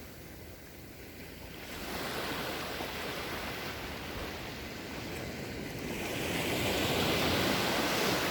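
Sea waves breaking and washing ashore: a steady rush that swells about two seconds in and again, louder, near the end.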